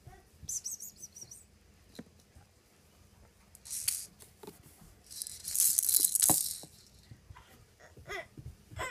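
Bursts of rattling, scratchy noise with a few light knocks as a kitten plays with plastic toys; the longest and loudest burst comes about five seconds in.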